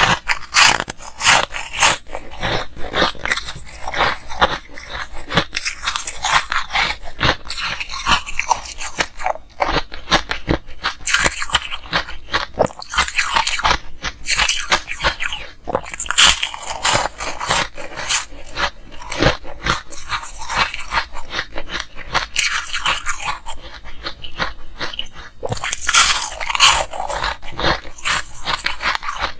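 Close-miked crunching of hard ice being bitten and chewed: a fast, unbroken run of crisp cracks and crunches, with louder bites about halfway through and again near the end.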